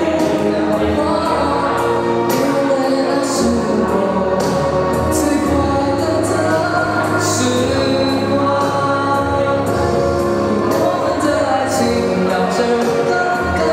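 A man singing solo through a handheld microphone, amplified over accompanying music.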